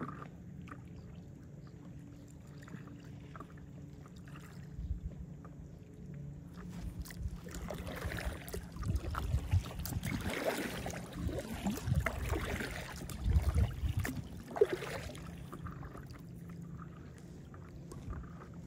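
Paddle strokes splashing and water lapping against a stand-up paddleboard, louder and more irregular through the middle stretch, over a faint steady low hum.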